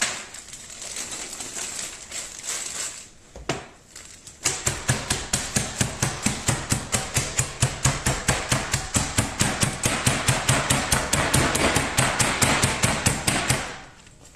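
Hazelnuts in a plastic freezer bag being crushed with a wooden rolling pin on a board. The bag rustles at first, then the pin strikes in a fast, even run of knocks, about five a second, for around nine seconds before stopping near the end.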